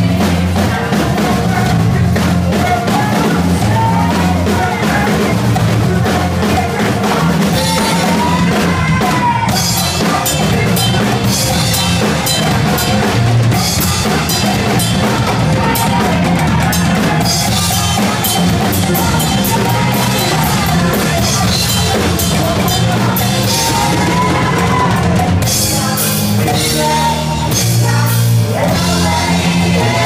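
Live band playing a rock groove driven by a drum kit, with busy cymbal work that drops in and out from about eight seconds in, and hand-played conga drums in the mix.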